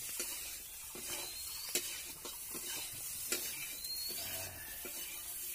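A metal spatula stirring and scraping dry fish and green banana in an iron kadai over a wood fire. A steady sizzle runs under a few sharp knocks of the spatula against the pan.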